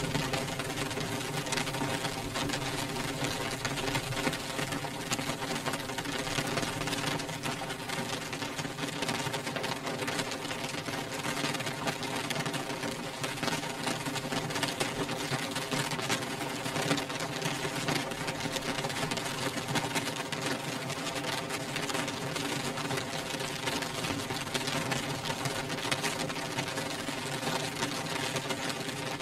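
Rain beating steadily on a glass windowpane: a dense, even patter of countless drop ticks, with a low steady hum underneath.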